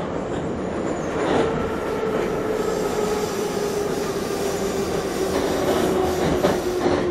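Moscow Metro train running, heard from inside the carriage: a dense rumble of wheels on track, with a whine that sets in about a second in and slowly falls in pitch, and a few clicks near the end.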